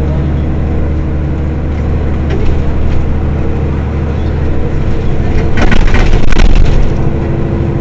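Mercedes-Benz Citaro city bus engine idling steadily with a low hum. About five and a half seconds in, a loud burst of noise lasts over a second.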